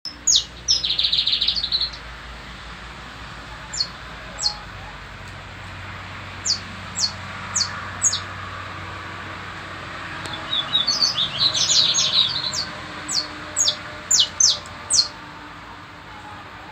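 Saffron finch (canário-da-terra) singing: separate sharp, high, down-slurred notes scattered through the song, with two rapid trills, one about a second in and another about ten seconds in.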